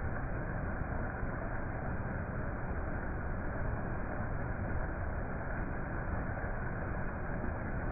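Steady, even background noise with no tones or distinct events, like a constant rumble or hiss.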